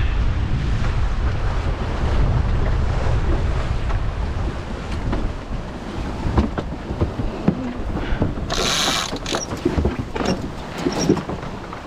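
Strong wind buffeting the microphone aboard a sailing yacht, with sea noise. From about halfway on there are scattered mechanical clicks and knocks from the boat's gear, and a short hissing rush about three-quarters through.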